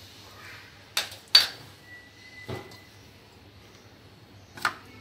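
Four short knocks and clicks from utensils and cookware being handled at the stove, the sharpest about a second and a half in, over a faint steady hum.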